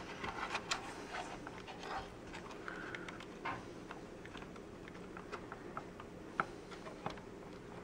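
Scattered light clicks and taps of the hard plastic housing pieces of a Bissell compact upright vacuum being handled and pressed together, irregular, with one sharper click late on.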